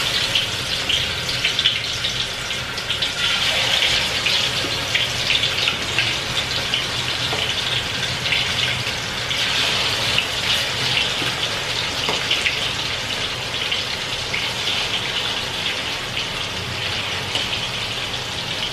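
Chicken pieces deep-frying in hot oil in a wok: a steady, dense sizzle with fine crackling.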